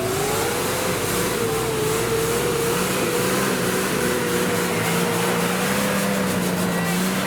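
Off-road 4x4's engine held at steady high revs, rising slightly about a second in and then holding, with a lower steady drone joining partway through.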